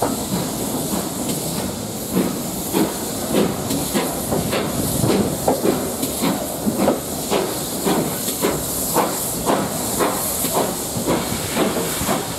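Steam locomotive exhaust beats from GWR engines heading the train, a regular chuff about twice a second over a steady hiss of steam, heard from a carriage window.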